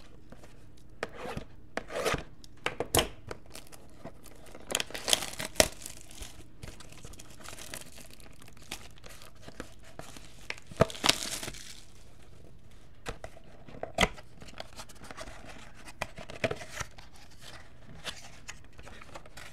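Plastic shrink-wrap being torn and crinkled off a factory-sealed box of 2015 Panini Playbook football cards, in a series of short rips with one longer tear about eleven seconds in.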